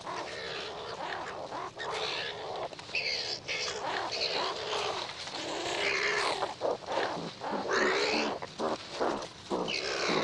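Two male striped skunks fighting, giving harsh calls that slide up and down in pitch, one after another with hardly a break.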